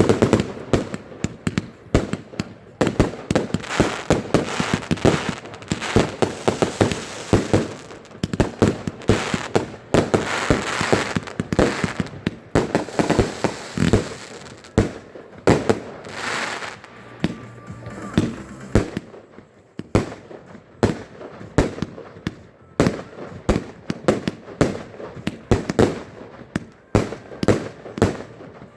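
Fireworks going off: a rapid, continuous run of sharp bangs and crackling bursts, several a second, with a brief lull about two-thirds of the way in.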